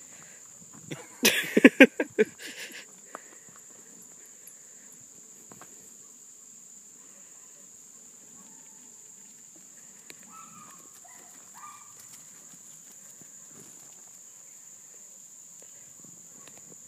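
Hounds baying on a fox's trail: a short burst of several loud cries about a second in that then falls away. A steady high-pitched drone of crickets or other insects runs underneath.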